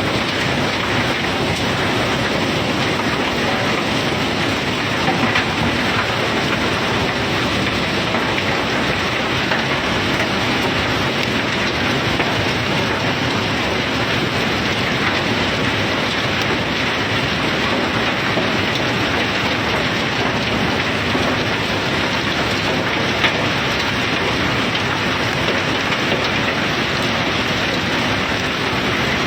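Self-unloading ship discharging its bulk cargo: a steady, rain-like rush of material pouring, with a low rumble underneath.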